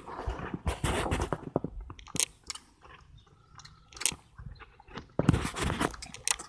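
Calf sucking and slurping on a rubber bottle nipple, with short wet smacking clicks. Louder rustling bursts come in the first second or so and again about five seconds in.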